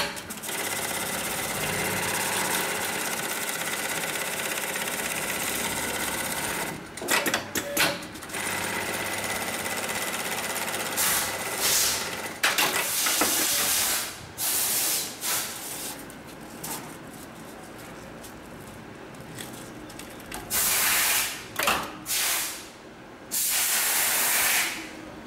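HighTex MLK300-2516 programmable pattern sewing machine running in stitching cycles, stopping and restarting several times. There are short, loud hissing bursts between cycles, two of them near the end.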